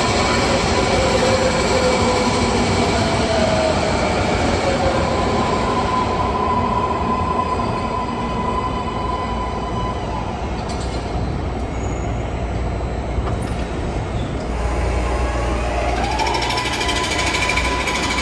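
MARTA rapid-transit train on the tracks at a station platform: a steady rumble of wheels and running gear with a motor whine that falls in pitch as the train slows in. Near the end the whine rises in pitch and then holds steady as a train moves off.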